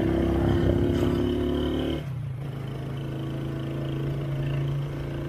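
Engine of a moving road vehicle running steadily; about two seconds in, its note drops and gets quieter, then holds steady at the lower note.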